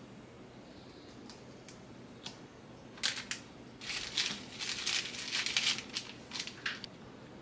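Plastic Oreo cookie wrapper crinkling in a rapid run of crisp bursts as crushed Oreo cookies are shaken out of it into a bowl of cheesecake batter, after a few faint clicks.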